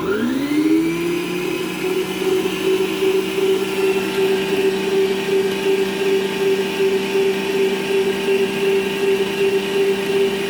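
Planetary stand mixer motor starting up, its whine rising in pitch over about the first second, then running steadily as it beats cake batter.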